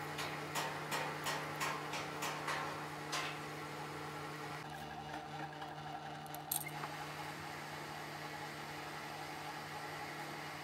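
Manual metal lathe running with a steady hum while turning a small metal firing pin. In the first three seconds comes a run of about eight sharp ticks, roughly three a second. About halfway through the sound thins briefly and a sharp click follows, and then the steady running resumes.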